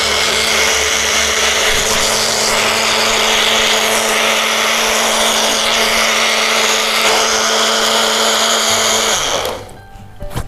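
Small bullet-style personal blender running at full speed, its cup held pressed onto the motor base, blending semi-frozen milk with nuts and dates. About nine seconds in the motor cuts out and winds down in pitch, followed by a few sharp clicks.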